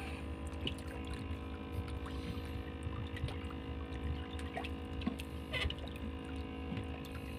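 Boat engine running with a steady hum, with a few faint clicks.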